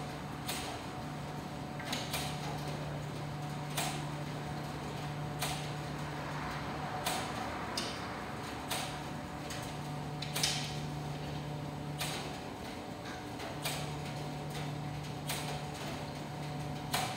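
Commercial ADC tumble dryers running: a steady low hum that drops out briefly a few times, with a sharp knock about every second and a half from the turning drums.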